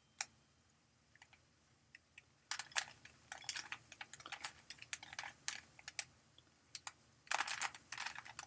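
A Rubik's Cube being twisted by hand: quick runs of plastic clicks as the layers turn. There is one click just after the start, and dense bursts from about two and a half seconds in.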